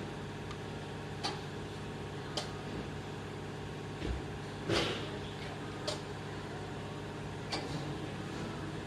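Steady machine hum with about six short sharp clicks and knocks scattered through it, the loudest a little past halfway.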